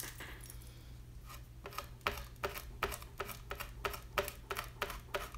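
Fingertip rubbing dried masking fluid off watercolour paper: a quick run of short, scratchy strokes, about three a second, starting about one and a half seconds in.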